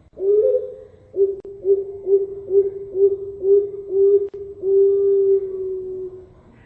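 Perkutut Bangkok (Thai-bred zebra dove) cooing one full song phrase. It opens with a coo, goes into six short, quick coos at about two a second, and ends on one long drawn-out coo.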